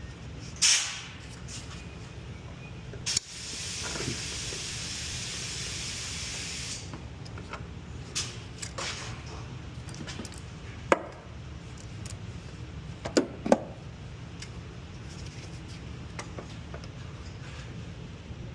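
An aerosol can sprays in one long burst of about three and a half seconds, a few seconds in. Around it come sharp metal clinks and knocks of hand tools on a seized brake line fitting.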